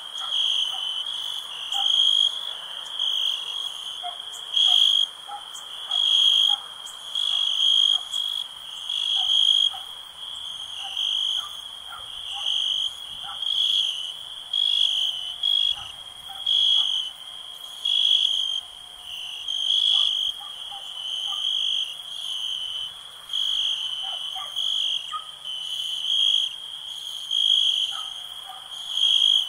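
Night chorus of insects and frogs: a loud, high-pitched trill pulsing about once a second, with short lower calls scattered underneath.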